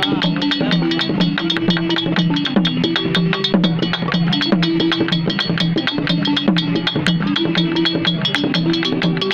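Wooden gyil xylophone struck with mallets, playing a fast, repeating melody of sharp, pitched notes.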